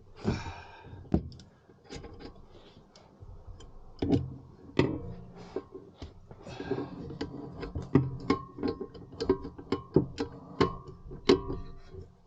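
Hand tools working on a BMW E60's front brake caliper: scattered metal clicks and knocks, then in the second half a quicker run of ringing metal clicks, about two or three a second, with a couple of short scrapes.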